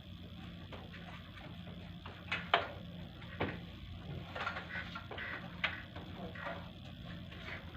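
Air-conditioning unit running with a steady low hum, with scattered small clicks and taps over it, the sharpest about two and a half seconds in.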